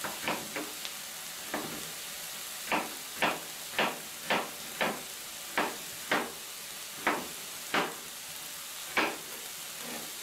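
Red onion and tomato sofrito with rounds of corn on the cob sizzling in a frying pan: a steady frying hiss broken by more than a dozen short, sharp pops at irregular intervals.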